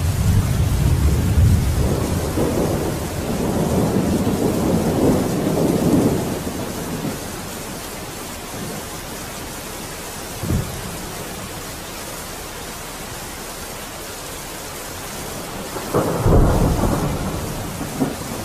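Steady rain with rolling thunder: a long rumble over the first six seconds, a short thud about ten seconds in, and another rumble near the end.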